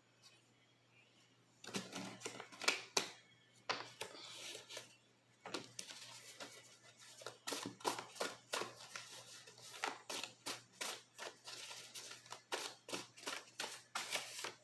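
Tarot cards being handled and shuffled: a run of irregular quick clicks and slaps of card stock, starting a second and a half in and growing busier toward the end.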